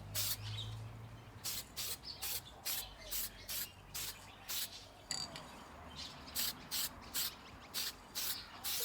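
Aerosol can of epoxy enamel paint spraying in short hissing bursts, about two a second.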